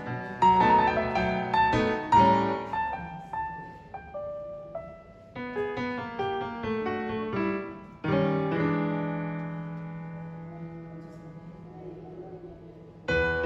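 Background piano music in a bluesy style. A phrase of struck notes is followed by a held chord that slowly fades for several seconds, before the tune picks up again near the end.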